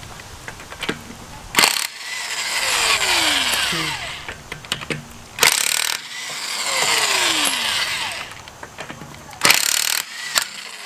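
A cordless power tool spinning loosened lug nuts off a car wheel: three runs of about two seconds each, each swelling and then winding down with a falling whine, with a sharp metal clank just before each run.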